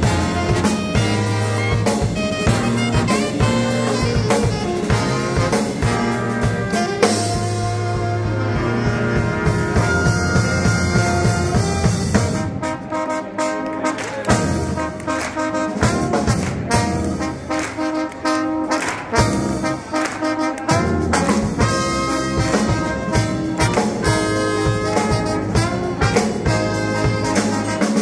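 A live brass band playing up-tempo: a sousaphone bass line under trumpets, trombones and a saxophone, with a drum kit keeping time. The low bass line drops out briefly about halfway through and again about two thirds in.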